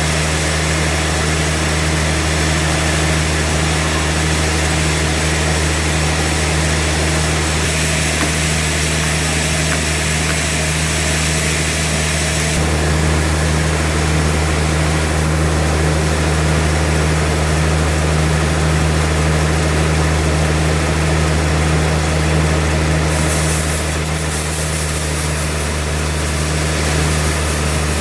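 Sawmill machinery running: a steady engine drone with hissing noise above it, its low hum shifting slightly about halfway through.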